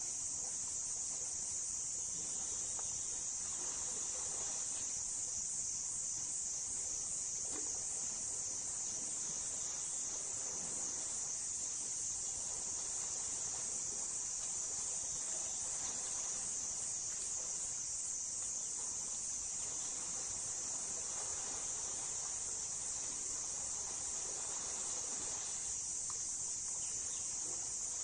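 Steady, high-pitched chorus of insects droning in the forest, with no change in level.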